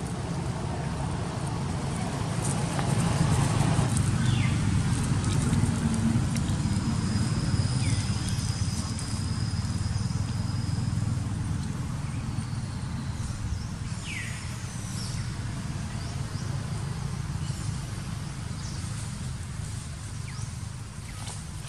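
Outdoor ambience: a steady low rumble that swells a few seconds in and slowly eases off, with a few short high chirps and a thin steady high buzz from about six to eleven seconds in.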